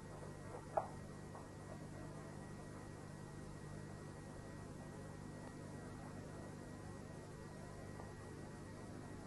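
Steady low electrical hum with faint hiss on the audio track, with one short sharp click about a second in.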